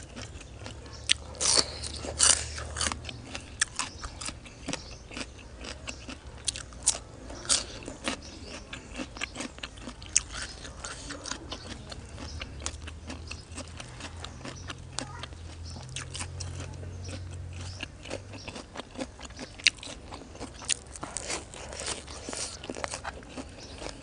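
A person biting and chewing crunchy raw vegetables and fresh herb leaves close to the microphone: a long run of crisp crunches, loudest about a second and a half to three seconds in.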